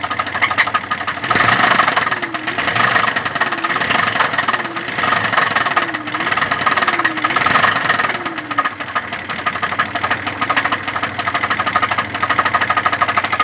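Engine running with a rapid, steady knocking. It swells louder and softer between about one and nine seconds in, then settles to an even run. The knock is the fault being shown.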